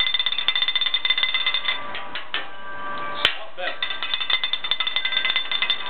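Rapid ratcheting clicks of a hand-twisted spice grinder over the griddle, pausing about halfway, with one sharp click just after the pause and a steady high tone underneath.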